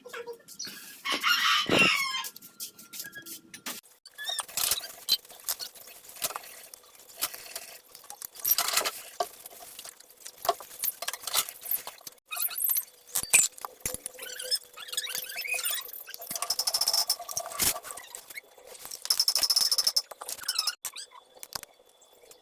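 A rooster crows once, about a second in. After it come scattered clicks and knocks, with two short stretches of hissing noise near the end.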